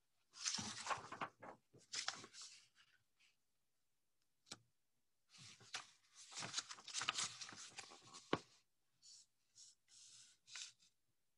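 Faint rustling and handling of a paper picture book as it is held up and its pages are turned, in irregular bursts with a few sharp clicks, the sharpest about eight seconds in.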